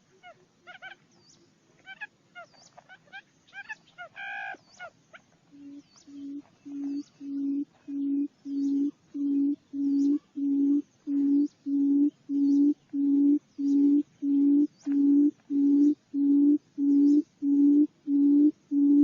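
Barred buttonquail booming: a regular series of low hoots, about one and a half a second, starting about five seconds in and growing louder. Before it, scattered higher chirps and calls.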